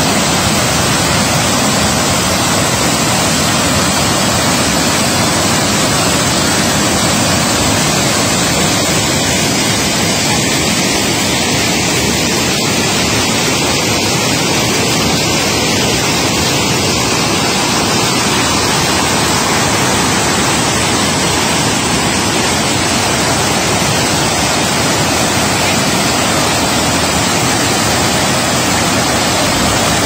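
Rushing water of a rocky stream cascading over boulders, a loud, steady rush that does not change.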